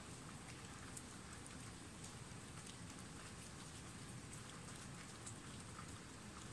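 Faint, steady rain hiss with scattered sharp ticks of drops striking wet ground and leaves.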